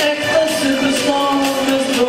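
Pop music with a singing voice, playing without a break.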